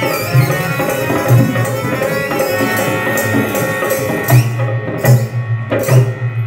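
Live Rajasthani folk music accompanying a string-puppet dance: a hand drum beats a steady rhythm under a held harmonium tone, with short high squeaky glides over it. The drumming grows louder and busier about four seconds in.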